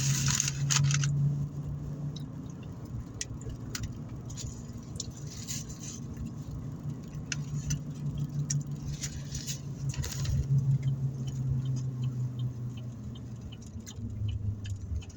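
Paper food wrappers crinkling and rustling in a car, with scattered small clicks and crackles, louder at the start, over the car's steady low hum.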